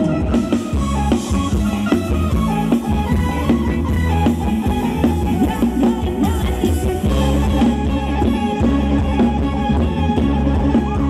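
Thai ramwong dance music from a live band played loud over a PA, with drums keeping a steady beat under melody instruments.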